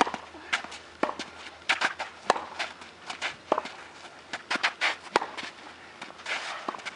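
Tennis rally on a hard court: sharp pops of the ball coming off racket strings and bouncing on the court, mixed with quick footsteps and shoe scuffs, many short clicks at irregular intervals, with a brief scraping scuff near the end.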